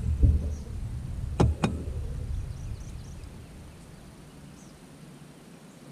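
Handling noise of a long fishing rod being worked in its holder and lifted out in a boat: a low rumble with two sharp knocks about a second and a half in, then the sound dies away to faint high chirps.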